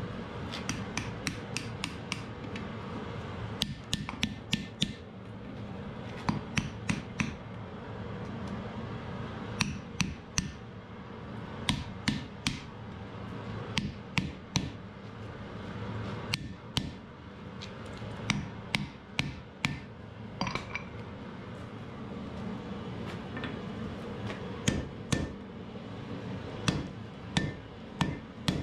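Hand hammer striking red-hot wrought iron on an anvil in runs of several quick blows with short pauses between them. Some blows leave a brief ring from the anvil, and a steady rush continues underneath.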